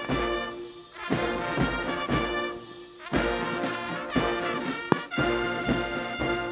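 Military brass band playing a ceremonial salute, with trumpets, trombones and sousaphones over low drum beats, in phrases of about two seconds with short breaks between them.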